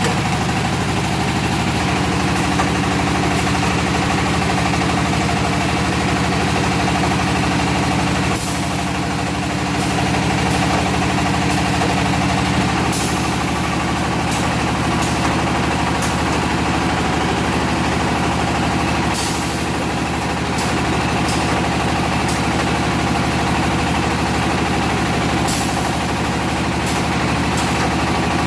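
Automatic red-brick moulding machine running: a steady machine drone with short, sharp noisy bursts every few seconds at irregular intervals, as the wire-cutting table works.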